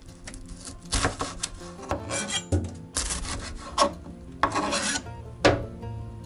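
Kitchen knife slicing through a halved onion onto a plastic cutting board: several separate cuts, roughly one a second, each a short rasping stroke, the sharpest one near the end.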